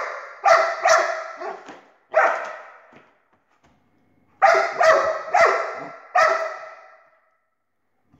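A dog barking excitedly at a laser-pointer dot: a quick run of four barks, a pause of about two seconds, then four more.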